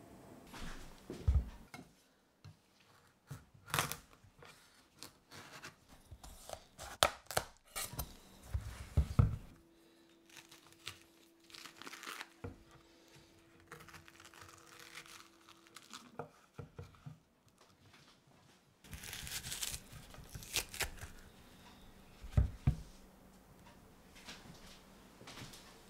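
Kitchen knife working a halved raw butternut squash on a wooden cutting board: irregular crunching and scraping as seeds and stringy pulp are scooped from the cavity, with sharp knocks of the knife and squash on the board. A faint steady hum runs underneath for several seconds in the middle.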